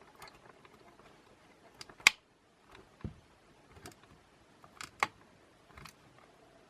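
Scattered sharp clicks and taps, the loudest about two seconds in, from a precision screwdriver and small parts on the plastic body of a DJI Mavic Air drone as a tiny cover-plate screw is driven in.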